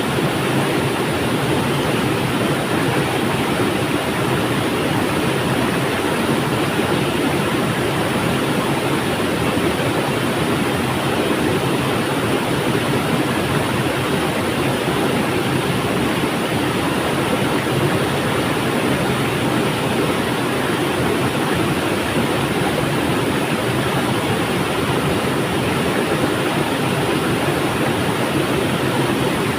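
River water flowing steadily: an even, unbroken rushing sound.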